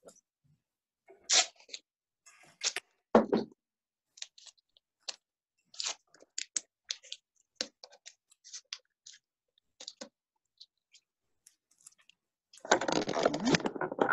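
Sticky tape, cardboard tube and paper being handled on a tabletop: scattered small crackles and clicks, a knock about three seconds in, and louder rustling handling noise near the end.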